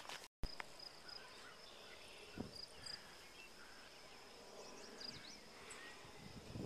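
Faint outdoor ambience dominated by a steady high-pitched insect drone that pulses in short beads, with a few faint bird chirps about five seconds in and a soft thump about two and a half seconds in. The sound cuts out completely for a moment just after the start.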